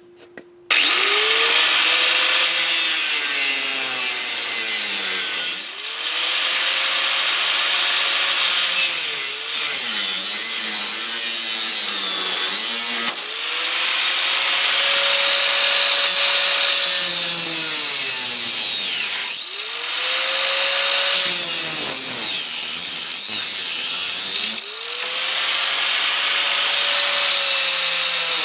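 Harbor Freight Drill Master 4.5-inch angle grinder cutting through a metal lawnmower handle, with a loud grinding hiss. The motor's pitch sags each time the wheel is pressed into the cut and climbs back when eased off, about five times: the small 4.3-amp motor bogging down under load.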